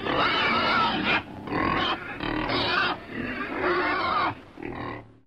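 Domestic pig grunting and squealing in a run of rough, wavering calls with short breaks between them, ending in one short last grunt near the end.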